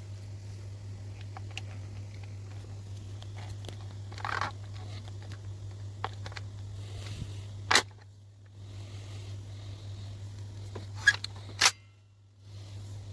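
Sharp mechanical clicks from handling a WA2000 gas blowback airsoft rifle: a brief rustle, one loud click about two-thirds of the way in, then a quick group of clicks near the end, over a steady low hum.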